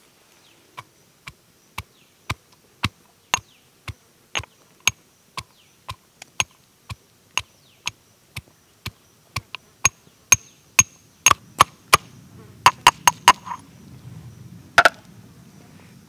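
Green marble pestle pounding in a matching marble mortar, crushing small pieces with sharp, even strikes about twice a second. Near the end the strikes come quicker and louder, with a low grinding rub under them.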